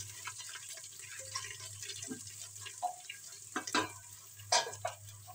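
Ground spices frying in oil in an aluminium pressure cooker, crackling as a spoon stirs them. A few louder scrapes of the spoon against the pot come about two, three, three and a half and four and a half seconds in.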